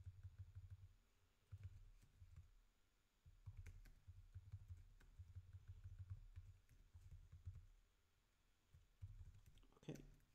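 Faint typing on a computer keyboard: scattered, irregular key clicks. A brief louder sound comes near the end.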